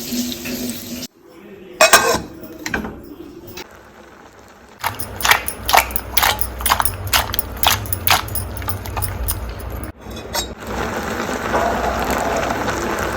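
Cooking sounds of preparing yam: metal utensils and dishes clinking and knocking, with a quick run of sharp knocks a few seconds in, then a steady sizzling hiss near the end as the yam fries in oil.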